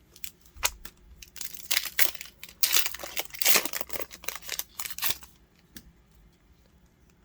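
Foil wrapper of a Yu-Gi-Oh booster pack crinkling and tearing as it is ripped open. A dense run of sharp crackles stops about five seconds in.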